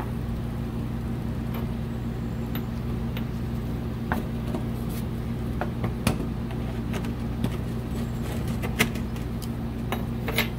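Scattered light clicks and knocks as a replacement car heater core and its heater valve are handled and fitted together on a workbench, over a steady low hum.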